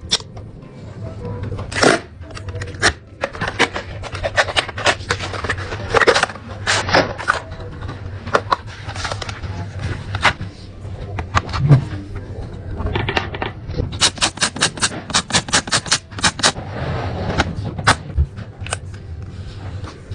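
Handling of a smartphone's packaging and accessories: scattered clicks, taps and light scrapes, with a fast run of clicks about two-thirds through, over a low steady hum.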